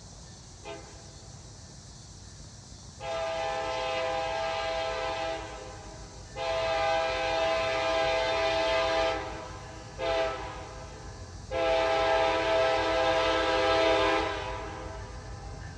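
Approaching freight locomotive sounding its multi-chime air horn in the grade-crossing pattern: two long blasts, a short one, then a long one. The horn begins about three seconds in, over a faint low rumble from the train.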